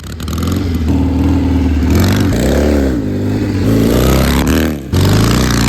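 1957 Triumph Desert Sled motorcycle engine running and revving, its pitch rising and falling twice, with a short drop near the end.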